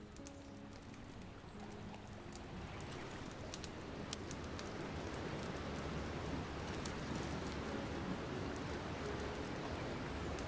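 Small open fire of dry twigs crackling: a steady hiss scattered with sharp snaps and pops, growing slowly louder. Background music fades out in the first second or two.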